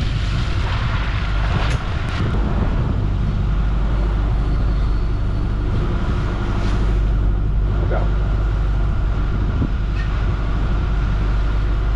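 Steady low drone of a fishing boat's onboard machinery running, with a faint steady whine above it.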